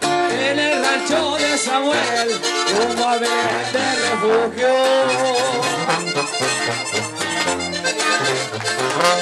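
Live norteño band playing an instrumental break in a corrido: accordion carrying a bending melody over a tuba bass line that steps between notes, with guitar accompaniment.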